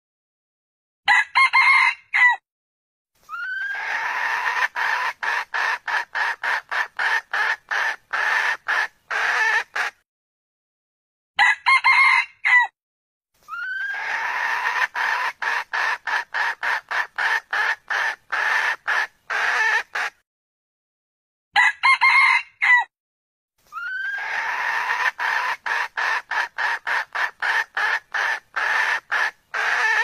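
Red junglefowl calling: a short crow of about a second, followed by a long run of quick, evenly spaced clucks lasting around seven seconds. The same sequence comes three times, about ten seconds apart, as if looped.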